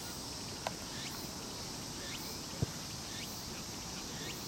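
A football being kicked: one dull thud about two and a half seconds in, over a steady outdoor background hiss.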